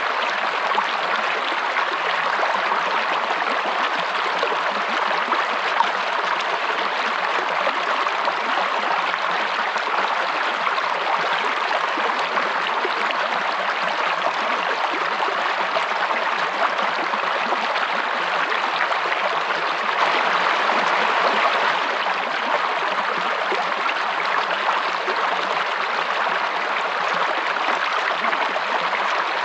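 Stream water flowing and splashing over stones, a steady rushing babble with no pauses.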